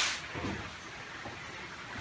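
Roar of an underground waterfall inside a limestone cave, cut off a fraction of a second in, leaving only a faint, even hiss.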